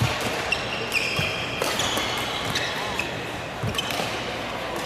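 Badminton rally: rackets strike the shuttlecock with sharp smacks several times, and court shoes squeak in short bursts on the floor as the players move.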